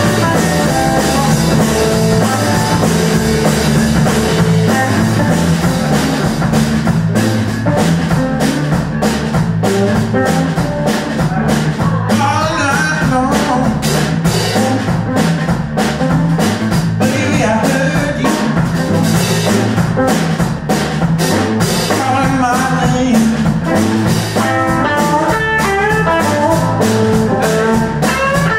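Live blues-rock band playing: electric guitar lines over bass and a drum kit, with steady drum hits coming in strongly about six seconds in.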